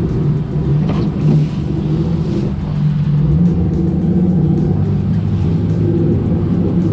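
A sportfishing boat's inboard engines running steadily under way: an even, low drone, with water rushing in the churning wake.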